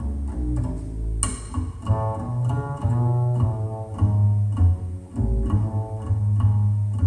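Music played through KEF LS50 Meta bookshelf speakers and picked up by a phone's microphone: a deep plucked double-bass line with plucked melody notes above it, and one sharp bright attack about a second in.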